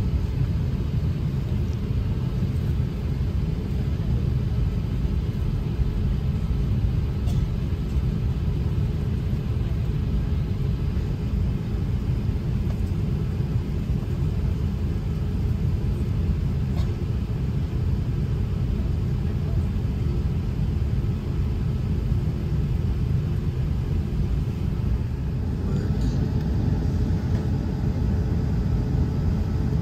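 Airliner cabin noise on the ground: a steady low rumble of the jet engines at idle and the cabin air, holding at an even level.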